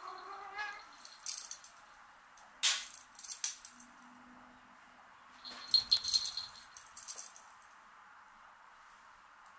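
A cat's meow trails off right at the start. It is followed by scattered sharp clicks and jingling, clattering rattles in several short clusters, the busiest about six seconds in.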